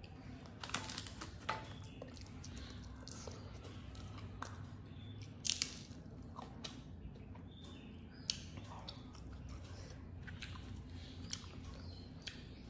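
Close-up mouth sounds of a person biting and chewing food eaten by hand, with scattered sharp crunches, the loudest about five and a half seconds in, over a steady low hum.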